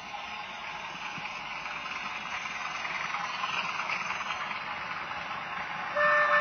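Model diesel locomotive's DCC sound decoder playing engine sound through its small speaker, with the running of the model train, growing slowly louder as it approaches. About six seconds in, a horn tone sounds suddenly and loudly.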